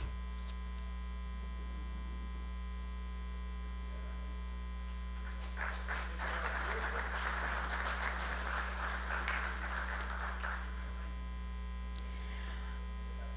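Steady electrical mains hum, with faint, brief applause from an audience from about five and a half seconds in until about ten and a half seconds.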